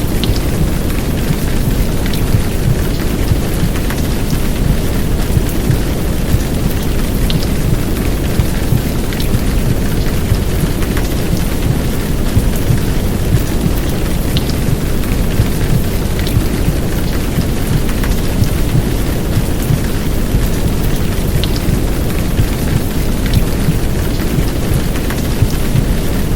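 Steady downpour of rain layered with a deep, muffled womb-sound noise, with scattered sharp drop ticks over the top.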